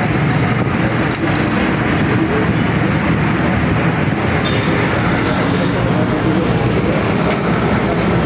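Steady background rumble of vehicle traffic or running engines, with no breaks.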